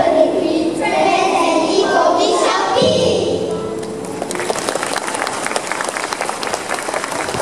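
A group of young children singing a closing line in unison, ending on a held note about three seconds in. Then audience applause starts about four seconds in.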